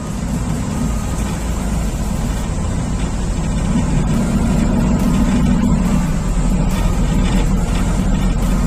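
Pilot boat's engines running with a steady low drone, growing louder over the first few seconds and then holding level.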